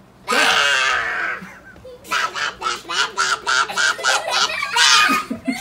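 A toddler's loud high-pitched squeal, then a run of quick rhythmic laughs, about four a second, and another squeal near the end.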